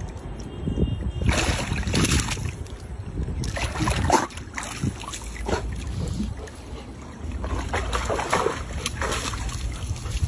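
Wind rumbling on the microphone, with several louder rushes of noise; the loudest is about four seconds in.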